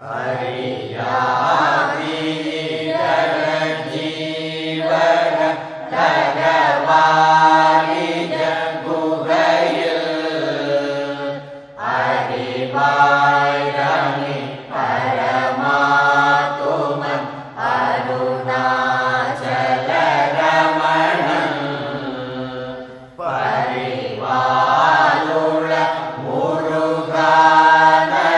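Devotional chant sung over a steady low drone, in long melodic phrases with short breaks between them.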